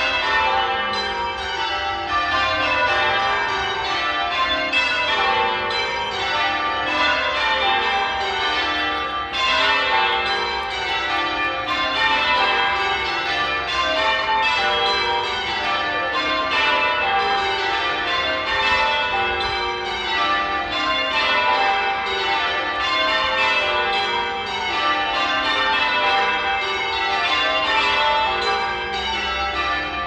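Tower bells hung on wheels, rung full-circle in change ringing: a continuous, rapid run of bell strikes, each sequence stepping down in pitch from the highest bell to the lowest.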